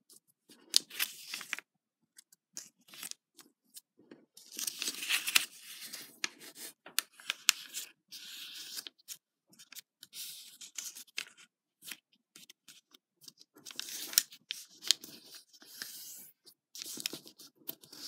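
A sheet of origami paper handled and folded by hand: crisp rustles and crackles in short bursts with pauses, as the paper is folded over, slid on the table and its creases pressed flat.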